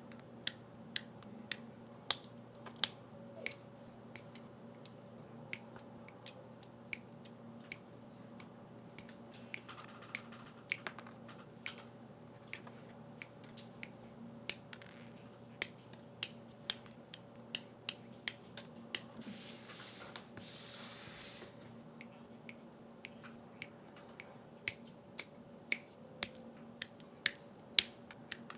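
Plastic parts of a Gunpla model kit clicking sharply as they are handled and snapped together, about one or two irregular clicks a second. A short stretch of rustling comes about two-thirds of the way through.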